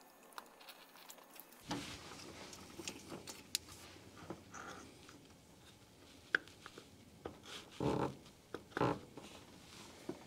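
Faint clicks, scrapes and rustling of hands working a new distributor down into a Cadillac 472 V8 and turning it to line up the gear, with two louder bumps about a second apart near the end.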